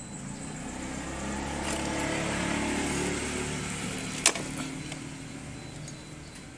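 A motor vehicle's engine hum that swells over the first few seconds and then fades away, as of a vehicle going past, with a single sharp click about four seconds in.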